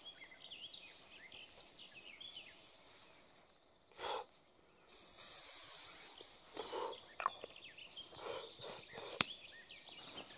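Aerosol mosquito repellent spray hissing in two long sprays, the first running about three seconds and the second starting about five seconds in. A short knock comes between them and a sharp click near the end.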